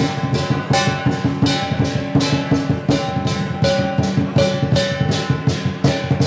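Lion dance percussion: Chinese drum, cymbals and gong playing a fast, steady beat, with ringing cymbal crashes about three times a second.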